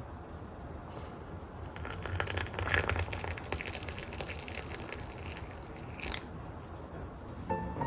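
Water poured in a thin stream into a ceramic teacup onto a tea bag, splashing as the cup fills, starting about two seconds in and stopping about six seconds in. Soft music notes begin near the end.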